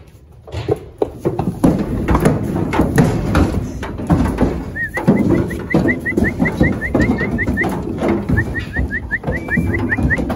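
Cattle hooves knocking and stomping on the wooden chute and the floor of an aluminium stock trailer as heifers are loaded, with irregular thuds and clatter. From about halfway, quick runs of short high chirps repeat about five times a second.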